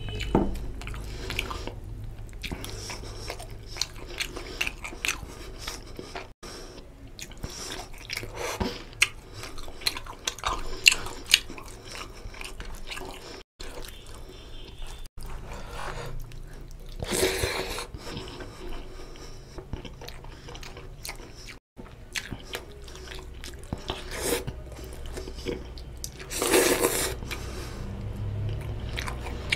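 Fingers squishing rice into oily chicken curry gravy on a steel plate, with wet chewing and lip smacks. Irregular small clicks and squelches throughout, with a couple of louder wet bursts.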